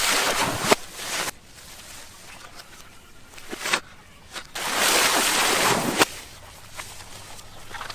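Bunches of green coconuts falling into a farm canal: two big splashes of water about four seconds apart, with a few sharp cracks.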